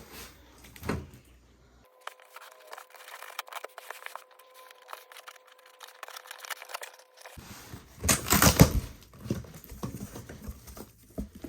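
A cardboard package being opened by hand: scattered crackling and tearing, with a louder burst of tearing about eight seconds in.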